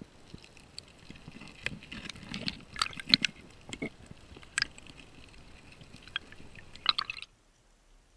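Irregular underwater clicks, knocks and scrapes of a steel spear shaft working against rock in a crevice. They are densest and loudest between about one and a half and four seconds in and again around seven seconds, then cut off suddenly.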